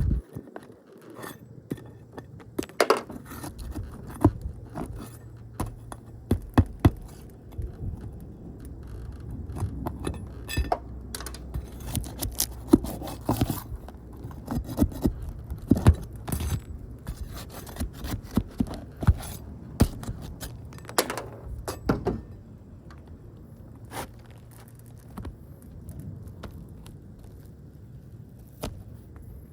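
Repair-bench handling noises: many sharp clinks, knocks and scrapes of tools or parts being handled, over a low steady hum that fades out in the last third.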